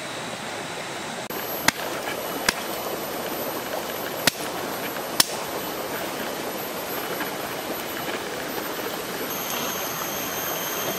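Wood fire burning under a cooking grill: a steady hiss of flame, with a few sharp crackling pops in the first half.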